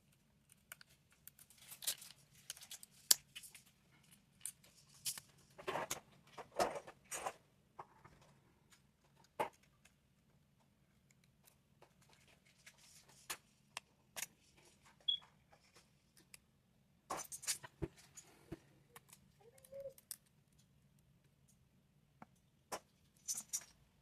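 Scattered small clicks, taps and short scrapes of hand tools working on an iPhone 13 Pro Max during a back-glass replacement, coming irregularly, with busier stretches, over a faint steady low hum.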